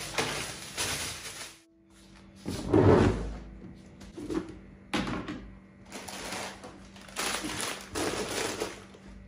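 Plastic carrier bag and instant-noodle packets rustling while white plastic storage boxes are moved and knocked about on a kitchen counter, with a loud thump about three seconds in and a sharper knock a couple of seconds later.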